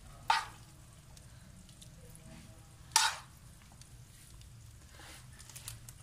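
Metal spoon scooping a cooked chicken and vegetable filling out of a pan and spreading it over bread, with soft scraping and two sharp clinks of the spoon, one near the start and one about three seconds in.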